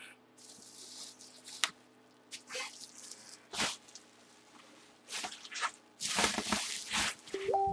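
Bubble wrap rustling and crinkling in irregular bursts as hands unwrap a football helmet, with a few sharp clicks and a brief squeak near the end.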